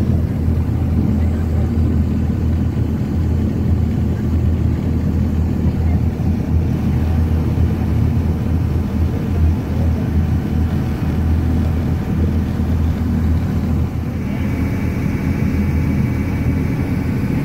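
A tour boat's engine running steadily under way, with water rushing along the hull. A faint, steady high whine joins near the end.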